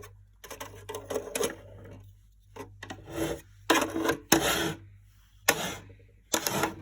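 Hard plastic parts of a toy washing machine scraping and rubbing as they are handled, in about eight irregular strokes, over a faint steady low hum.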